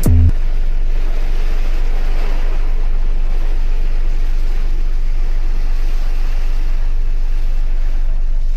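Steady low rumble and hiss heard from inside a car buffeted by typhoon wind and rain.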